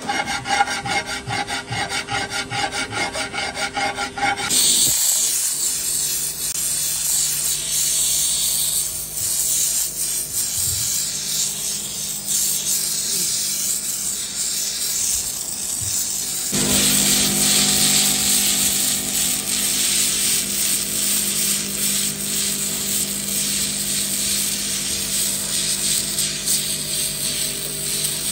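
A hand file rasps in quick repeated strokes on the lip of an aluminium alloy wheel rim, straightening a bend. After about four seconds it gives way to a gas torch flame hissing steadily as it heats the rim.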